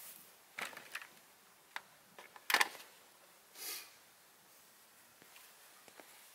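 A few sharp clicks and knocks from a bicycle being wheeled and set down on its stand, the loudest about two and a half seconds in, followed by a short rustle.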